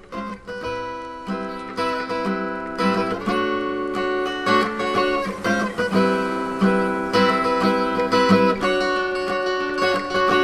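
Background music led by plucked acoustic guitar, with repeated strummed and plucked notes, growing louder over the first two seconds.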